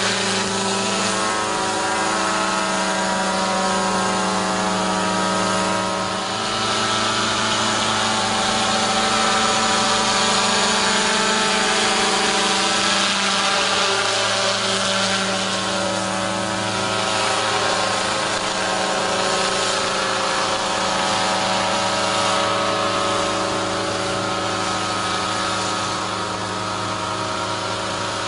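A motor running steadily with a droning hum, a hissing edge swelling and fading every few seconds.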